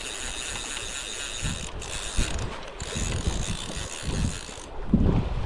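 Fly reel's click-and-pawl ratchet buzzing as line is pulled off it by a hooked salmon. The steady buzz breaks up about three seconds in, and rumbling grows loud near the end.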